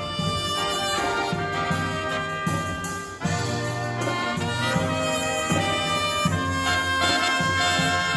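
Live brass band playing a tune, trumpets and trombones to the fore over a steady beat.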